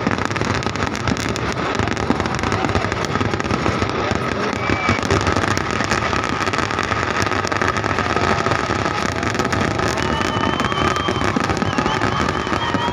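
Fireworks display: a dense, unbroken barrage of rapid bangs and crackling from exploding shells and firecrackers.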